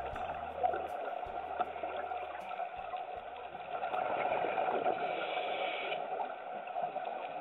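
Underwater ambience picked up by a dive camera: a steady watery hiss. The last low notes of background music fade out about three seconds in.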